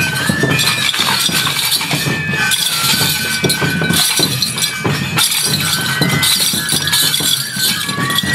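Enburi festival music: a bamboo flute plays a melody in held, stepping notes over a steady drum beat, with repeated metallic jingling and clinking.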